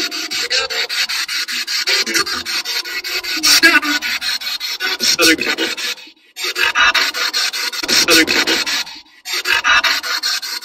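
SB7 spirit box sweeping through radio stations, played through the car stereo's speakers: rapid, regular chopping static with short snatches of broadcast sound, cutting out briefly twice, about six and nine seconds in.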